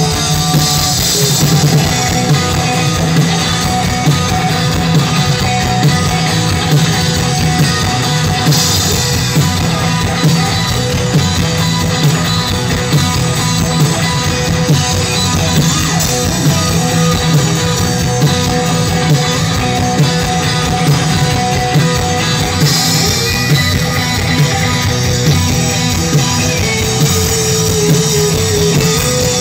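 Live rock band playing through a stage PA: drums and electric guitars.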